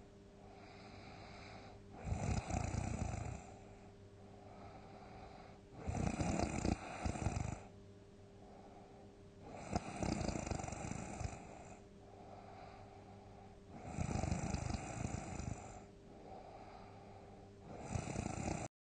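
A sleeping person snoring loudly, one big snore about every four seconds, five in all, each lasting about a second and a half, with quieter breaths in between.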